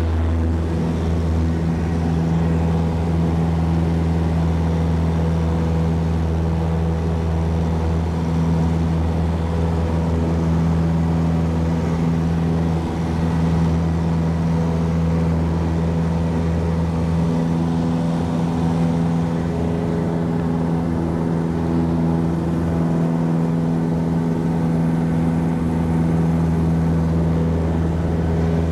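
Cessna Skyhawk's single piston engine and propeller running at climb power after takeoff: a steady drone heard inside the cabin.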